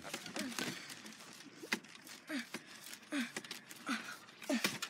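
A boy grunting with effort in short, falling-pitched grunts, about one a second, as he struggles against string tying him to a wooden chair, with rustling and sharp knocks from the struggle.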